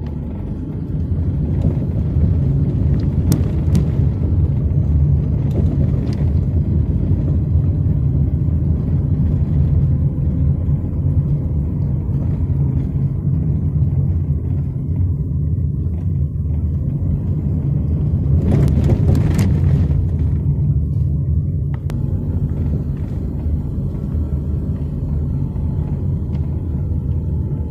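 Low, steady road and engine rumble of a moving car, heard from inside the cabin. A few short clicks or knocks come about three seconds in and again around eighteen to nineteen seconds in.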